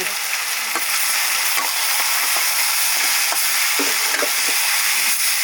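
Chicken meat sizzling steadily as it fries in a pan, with small pops and ticks now and then.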